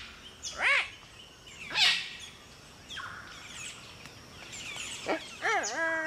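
Palm cockatoos calling: two loud short calls that rise and fall in pitch, about a second apart early on, then more of them near the end. Fainter chirps of other birds come in between.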